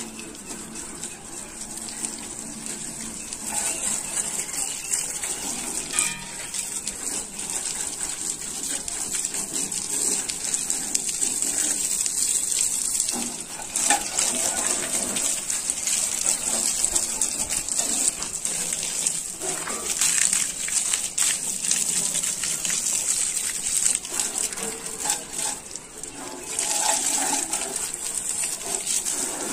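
Jet of water from a hose spraying and splashing onto a tractor's bodywork and tyres: a continuous hiss with gushing that swells and fades as the stream moves, dipping briefly near the end.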